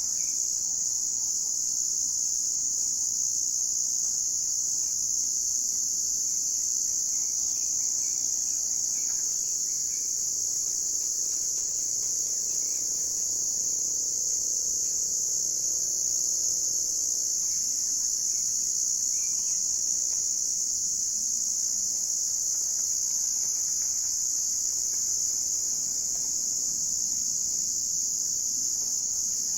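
A chorus of crickets trilling in one steady, unbroken high-pitched drone, with a few faint bird chirps near the start and again about two-thirds of the way through.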